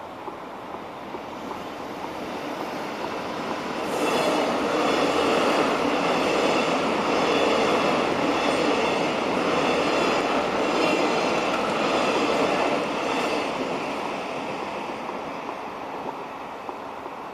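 An Irish Rail 29000 class diesel multiple unit passing through the level crossing. It builds over the first few seconds, is loudest for about nine seconds with a regular clatter of wheels over the rails, then fades as it moves off.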